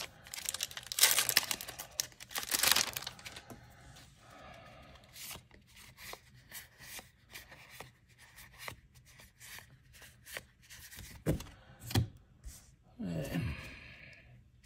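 Foil booster-pack wrapper being torn open and crinkled, loudest in the first three seconds. After that come faint clicks and slides of trading cards being handled and flipped.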